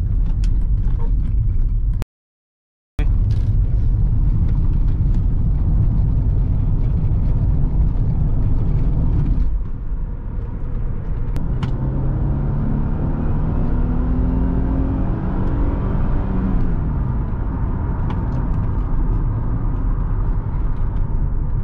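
A car being driven, heard from inside: a steady low rumble of road and engine. Past the middle, the engine note rises in pitch for a few seconds as the car accelerates, then falls away. The audio drops out completely for about a second near the start.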